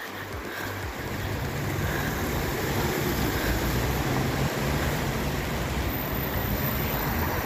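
Outdoor street ambience picked up by a phone in rainy weather: a steady hiss with a low rumble underneath. A faint high-pitched whine joins near the end.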